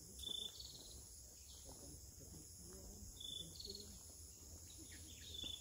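Faint, steady high-pitched insect buzzing, with a short high call repeating about every three seconds. Faint distant voices sound underneath.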